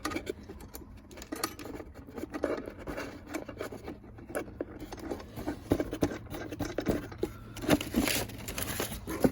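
Metal shifter parts and sticks being handled: a run of light clinks, taps and scrapes, with a few louder knocks near the end.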